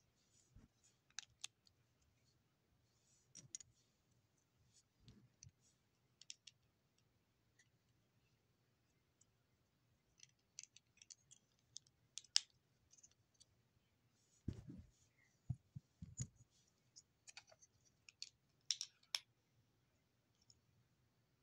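Sparse, irregular sharp clicks of plastic Lego bricks being handled, over near silence, with a few dull thumps about two thirds of the way through.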